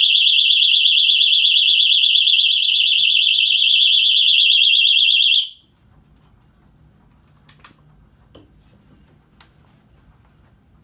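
Motion detector alarm sounding a loud, high-pitched warbling tone, set off by someone moving past it. The tone cuts off suddenly about five and a half seconds in, followed by a few faint clicks as the unit is handled.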